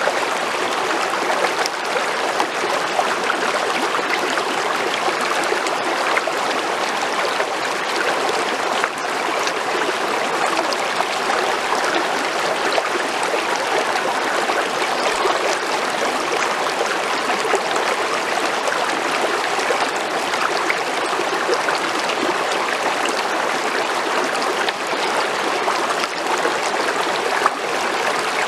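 Creek water flowing: an even, unbroken rush of running water.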